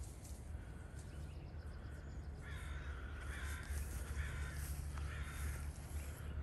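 Crows cawing: a string of harsh caws coming and going, over a low steady rumble.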